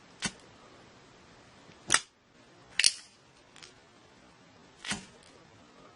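Zippo lighter's metal lid clinking open and snapping shut as it is flipped and spun: a handful of sharp metallic clicks a second or so apart, one of them doubled.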